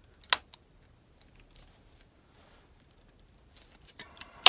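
Pliers crimping a thermal fuse's metal leg onto the terminal of a car blower-motor resistor: a sharp metallic click about a third of a second in, faint handling noise, then a louder cluster of clicks near the end.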